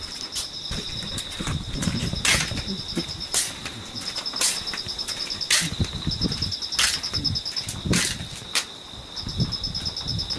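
Insects trilling steadily, a high continuous tone with a pulsing trill above it. Seven sharp knocks come about a second apart over a low rumble.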